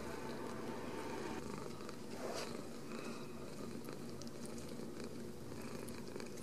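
Ragdoll kitten purring steadily, close up, with a brief scuffing noise about two seconds in.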